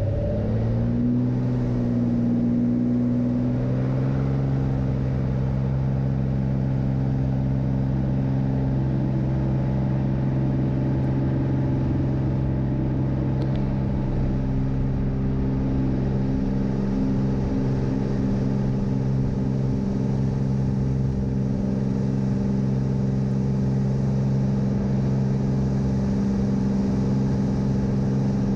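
Cirrus SR22's six-cylinder piston engine and propeller coming up to full takeoff power, the pitch rising over the first second or so, then running steadily at full power through the takeoff roll and lift-off, heard from inside the cockpit.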